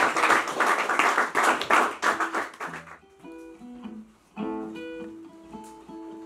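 Acoustic blues guitar played loud and hard with dense strokes for about three seconds, then breaking off to quieter picked single notes, with a chord struck about a second later and its notes left ringing.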